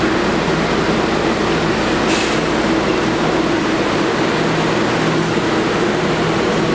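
An R188 subway train standing at the platform, its air-conditioning and onboard equipment giving a steady hum, with one brief high hiss about two seconds in.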